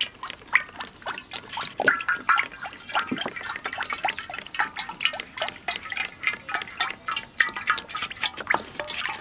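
Cooking oil poured in a steady stream from a plastic bottle into a hot wok: a dense run of small glugs and plops as the oil falls into the growing pool.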